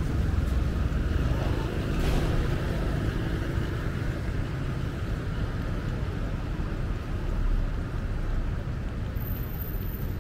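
Steady city street traffic: engines of passing motor vehicles running, with a brief louder pass about two seconds in.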